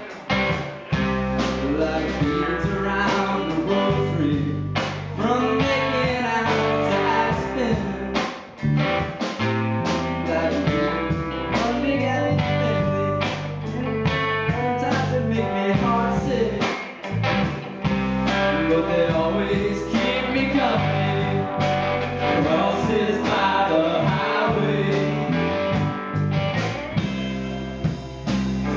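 Live rock band playing a song on electric guitars and a drum kit, with guitar lines that bend in pitch.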